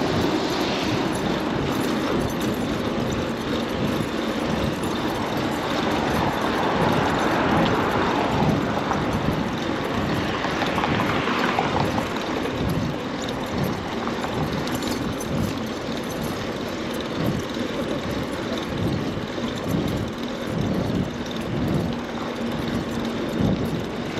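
Rush-hour city street traffic heard from a moving bicycle: cars and other vehicles running past in a steady wash of noise, with an irregular low rumble and buffeting underneath.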